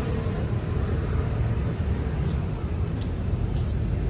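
A steady low rumble, with a few faint ticks between about two and three and a half seconds in.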